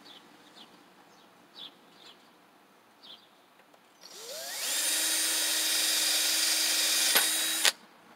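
Cordless drill starting with a rising whine about halfway in, running steadily while it bores a hole in a thin metal plate, then stopping abruptly. Before it, a few faint bird chirps.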